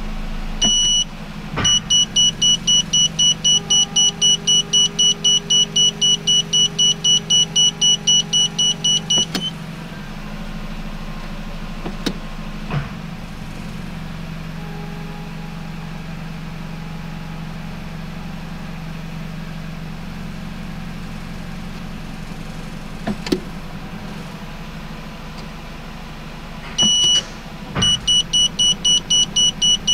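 Nissan Qashqai's reverse-gear warning beeper beeping rapidly, about four times a second, while the CVT is in reverse. It stops about nine seconds in and starts again near the end. Under it the 2.0 petrol engine idles steadily, with a few sharp clicks, as the selector is moved between reverse and drive to warm the gearbox and circulate fresh CVT fluid.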